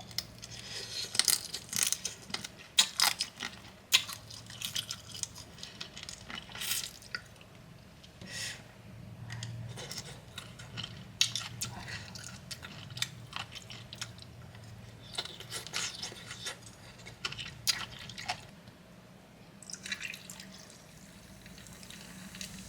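Close-miked eating of bamboo shoot and green papaya salad: irregular wet, crunchy chewing clicks and smacks. They come thickest in the first few seconds and again in the middle, over a faint steady low hum.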